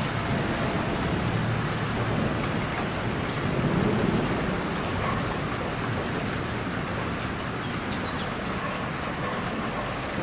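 Steady rain falling on hard surfaces during a thunderstorm, with a low rumble of thunder swelling about four seconds in.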